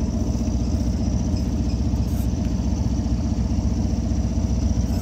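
A boat's engine idling steadily with an even low throb.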